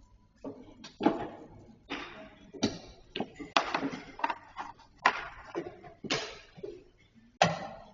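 Chess pieces being set down on boards and chess clock buttons being pressed: an irregular run of sharp clicks and knocks, about a dozen in eight seconds.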